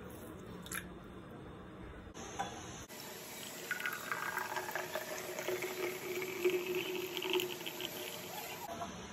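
Thick mango milkshake pouring in a steady stream into a tall glass, splashing as the glass fills. It starts about three seconds in and stops shortly before the end.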